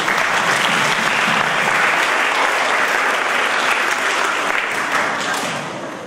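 An audience of students applauding, a dense patter of many hands clapping that dies away near the end.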